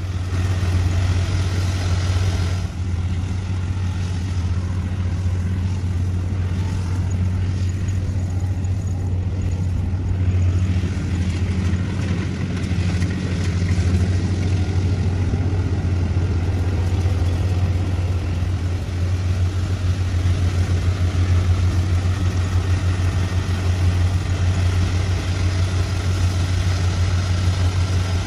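Heavy farm machine's engine running steadily, with a strong, even low hum.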